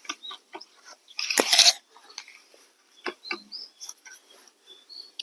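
A spade digging into garden soil: irregular crunching and scraping strokes, with one loud crunch a little over a second in, as a harvested potato bed is dug over.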